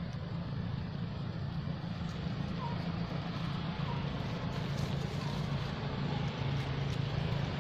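Steady low rumble throughout, with a few faint short chirps about a second apart.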